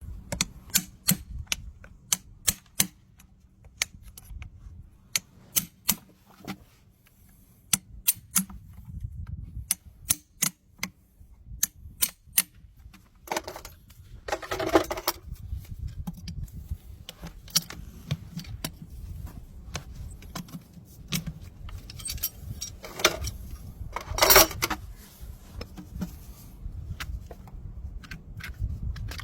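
Farrier's hand tools working on a horse's hoof to clear packed dirt: a run of sharp clicks and knocks, then longer scraping strokes about fourteen and twenty-four seconds in, over a low rumble.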